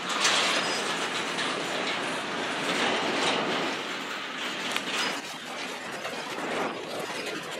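Freight train cars rolling past, wheels clicking over the rail joints, easing off somewhat after about five seconds.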